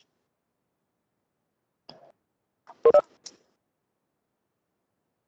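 Near silence, broken about three seconds in by two quick electronic beeps in close succession, with a fainter blip a second before.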